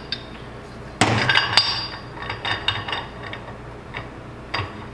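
Metal clinks as the collar is fitted onto the axle shaft in the aluminium front axle housing: one sharp, ringing clank about a second in, then lighter clicks and taps.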